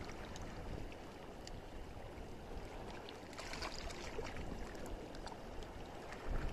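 Shallow seawater washing over rocks and pebbles of a tide flat: a steady wash of water noise, with a few faint crackles about halfway through.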